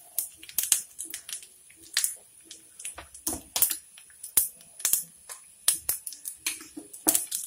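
Steel ladle stirring thick payasam in an aluminium pot, knocking and scraping against the pot in a string of irregular sharp clicks.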